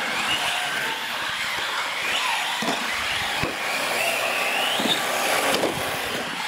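Radio-controlled UTV trucks racing on a concrete floor, their electric motors whining, the pitch rising and falling with the throttle, climbing highest about five seconds in, with a few short knocks.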